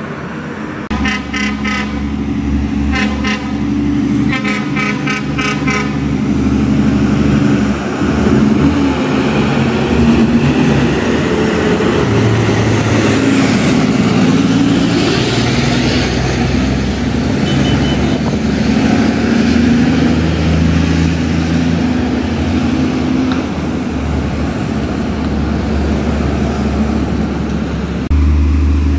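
Heavy truck's diesel engine running through the whole stretch, with the truck's horn sounding three times in the first six seconds.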